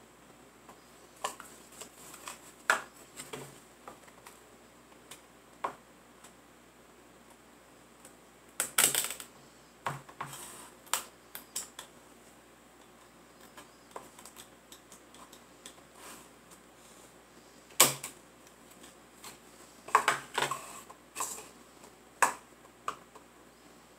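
Light, irregular wooden taps and clicks as a small wooden dollhouse cabinet is handled and set down on a tabletop, some single and some in short clattery clusters.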